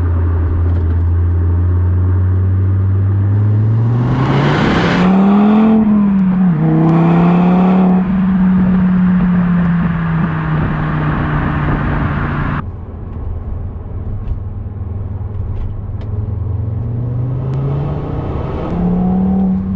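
Car engine under hard acceleration after an ECU remap. The revs climb from a low drone to a higher pitch with a hiss on top, hold steady, then drop suddenly about twelve and a half seconds in. They climb again near the end.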